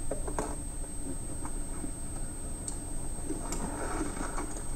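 Scattered faint clicks and scraping as the corrugated plastic underbelly of an RV trailer is cut and pushed back against the steel frame.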